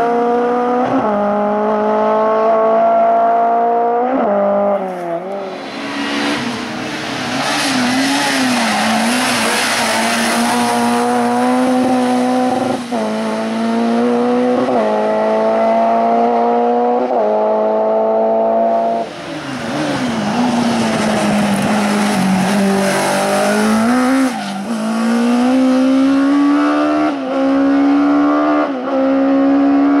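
Hill-climb racing cars' engines at high revs accelerating uphill, the pitch climbing through each gear and dropping sharply at each upshift. Twice there is a long stretch of loud rushing noise over the engine.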